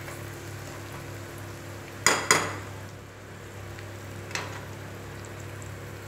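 A slotted metal spoon stirring lasoda pickle through oil and spices in a metal pan. The spoon clinks sharply against the pan twice about two seconds in and once more a couple of seconds later, over a steady low hum.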